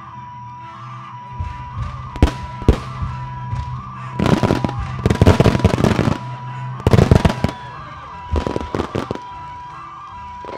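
Starmine fireworks shells bursting over music: a few sharp bangs about two seconds in, then dense volleys of booms and crackle about four seconds in, again around seven seconds, and once more around eight and a half seconds.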